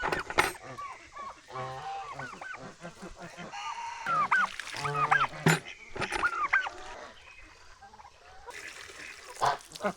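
Domestic waterfowl calling over one another in many short calls that rise and fall, thickest around the middle, with a few sharp knocks near the start and near the end.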